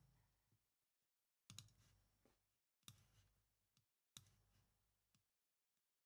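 Near silence, broken by three faint clicks about a second and a half apart, from editing at a computer.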